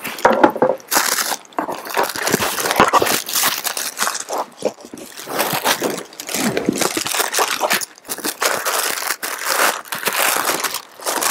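Tissue paper and shoe-box packaging being handled, rustling and crinkling in irregular bursts with a few short pauses.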